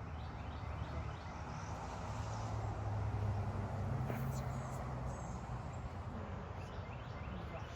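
Outdoor background noise: a steady low rumble with faint, short high-pitched chirps.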